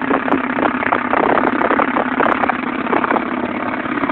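Sustained rapid automatic cannon fire from a tracked self-propelled anti-aircraft gun's 30 mm autocannons, taken for a 2K22 Tunguska's: the shots come so fast that they run together into a continuous rattling roar.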